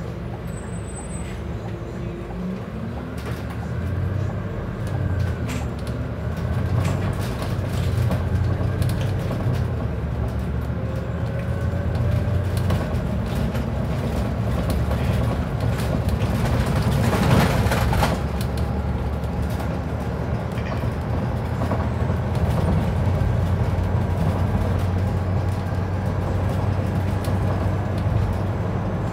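Scania Citywide CN280UB city bus driving along, heard from inside the cabin: a steady low engine and drivetrain hum with tyre and road noise, getting louder about four seconds in. A brief louder rumble comes about seventeen seconds in.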